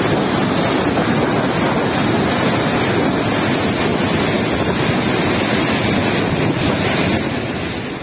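Steady rush of a monsoon-swollen waterfall, with wind buffeting the microphone. It fades out near the end.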